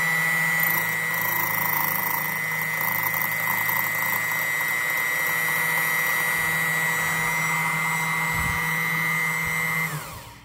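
Jensen Micro-Dial key machine's cutter motor running steadily with a high whine while the last cut is made in a B86 ignition key blank. It is then switched off near the end and spins down, its pitch falling.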